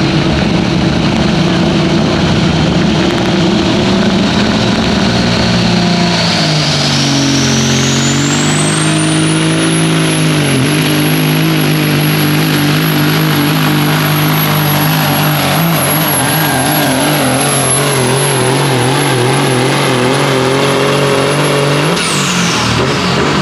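Pulling semi truck's Caterpillar diesel engine at full throttle under the load of a pulling sled, with a turbocharger whine that rises from about six seconds in to a high steady scream. Near the end the whine cuts off suddenly as the throttle is let off.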